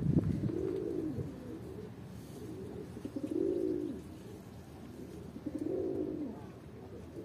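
Domestic pigeons cooing: three long coos that rise and fall in pitch, about two and a half seconds apart, with a brief low thump at the very start.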